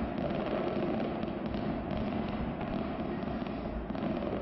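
Fireworks display heard from afar: a continuous stream of many overlapping pops and crackles at an even level, with no single bang standing out.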